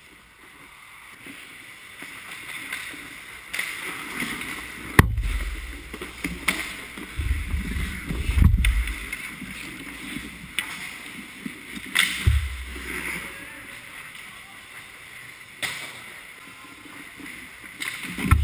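Ice hockey play heard from inside the goal: skate blades scraping and carving on the ice, with several sharp clacks of sticks and puck, the loudest about five seconds in, and low thumps against the net and the goalie's pads.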